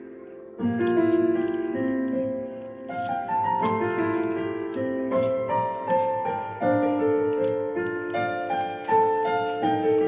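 Background piano music: a melody of held notes, picking up again about half a second in after a brief dip.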